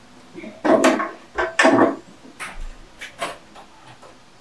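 A series of short knocks and clatters, like household objects being handled or set down.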